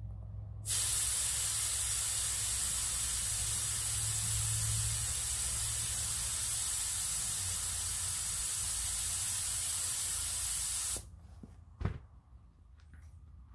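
Air hissing steadily out of a riding lawn mower tire's valve stem as the valve is held open, letting pressure down after the bead has been seated with extra air. The hiss starts abruptly under a second in and cuts off sharply after about ten seconds, followed by a short knock.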